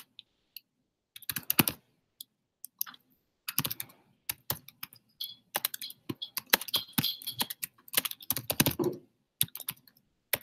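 Typing on a computer keyboard: short runs of quick key clicks with pauses between them. A brief burst comes about a second and a half in, and denser typing runs from about three and a half to nine seconds in.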